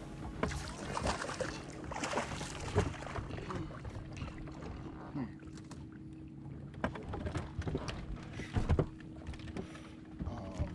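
A bass boat's motor hums steadily under short knocks, clicks and splashing as a smallmouth bass is fought to the boat and lifted aboard by hand. The sharpest knocks come about three seconds in and near the end.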